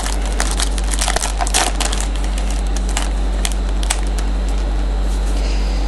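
Crackly rustling and clicking of a Topps Chrome trading card pack and its cards being handled, dense for the first two seconds and sparser after, over a steady low hum.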